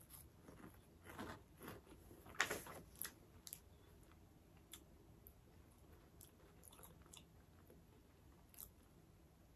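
Faint biting and chewing of a puffed corn stick snack, with a few short crunches in the first three seconds and quiet chewing after.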